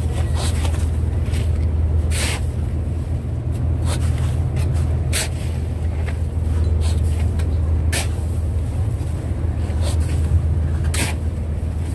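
A fishing boat's engine running with a steady low drone, with shovels scraping into crushed ice a few times, about every two to three seconds.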